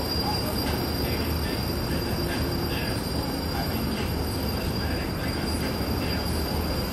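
Steady background rumble and hiss with a constant high-pitched whine, unchanging throughout.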